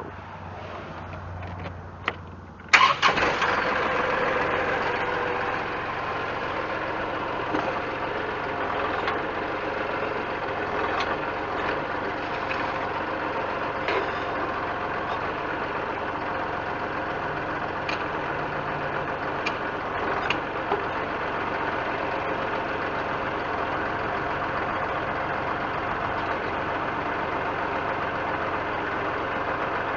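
Compact Kubota tractor's diesel engine, which drives the BH77 backhoe, starting suddenly about three seconds in, louder for the first few seconds, then running steadily.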